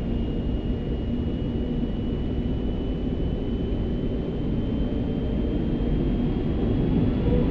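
Airbus A380's Rolls-Royce Trent 900 engines spooling up for takeoff, heard from the cockpit as a steady rumble with a faint high whine that slowly rises in pitch. Near the end, further rising tones join and it grows a little louder as the engines come up towards stabilized thrust.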